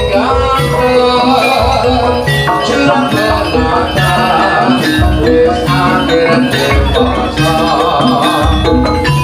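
Loud live jaranan music for a kuda lumping dance: a gamelan ensemble of ringing metallophones and gongs over steady drum beats, played through a sound system.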